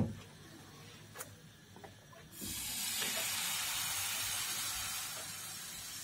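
Batter sizzling on a hot pan over the fire: after a couple of light knocks, a hiss starts suddenly about two and a half seconds in and slowly dies down.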